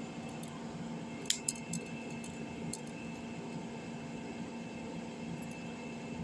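A few small sharp clicks and taps about a second in as parts of a Samsung Galaxy A03s phone are handled and fitted back in place, over a steady faint background hum.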